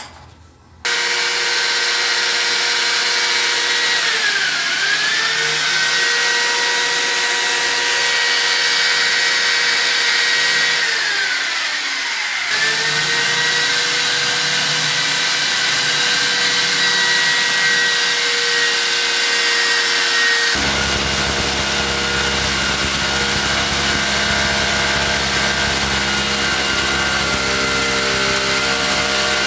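Handheld electric drill with a masonry bit boring into a tiled wall, drilling the fixing holes for a washbasin. The motor's whine starts about a second in and dips in pitch twice. About two-thirds of the way through it turns into a coarser, lower rattle.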